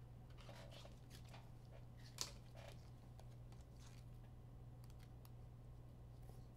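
Near silence: faint scattered clicks and rustles of trading cards being handled over a low steady hum, with one sharper click about two seconds in.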